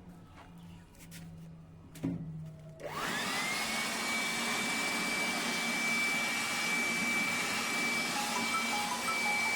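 A few light clicks and a knock, then about three seconds in a small high-speed motor starts up. Its whine rises quickly and then holds steady under a loud rushing of air.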